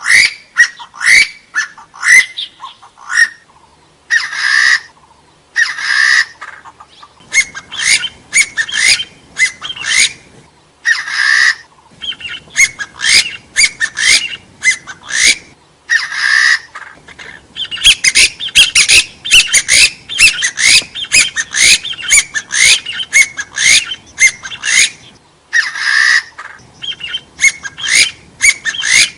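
Hill partridge calling: a fast run of short rising whistled notes, several a second, with a few longer, harsher notes among them.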